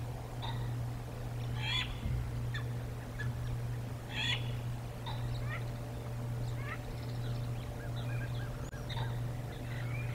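Wild birds calling in short, scattered chirps and whistled notes, with louder calls about two and four seconds in, over a steady low hum.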